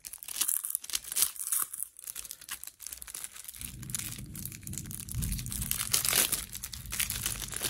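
Clear plastic shrink-wrap crackling and crinkling as it is torn off a sealed deck of cards and crumpled in the hand. A low rumble joins about halfway through.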